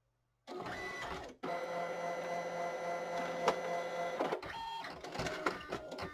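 ALPS MD-5500 thermal-transfer printer mechanism running: a steady motor whine with a short break about a second in, a single sharp click midway, then a run of clicks and clunks near the end as it stops.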